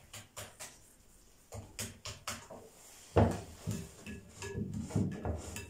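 Silicone whisk beating a thick flour-and-water batter in a ceramic bowl: irregular knocks and stirring strokes against the bowl, the loudest a thump a little past halfway.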